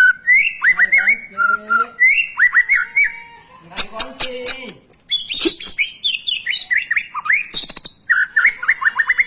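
White-rumped shama (murai batu) in full song: fast runs of repeated sweeping whistled notes, several a second, broken by harsh, high chattering phrases.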